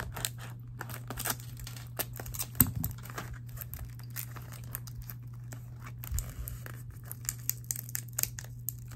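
Crinkling and tearing of a small face-mask sachet being opened and handled, a run of scattered crackles and ticks.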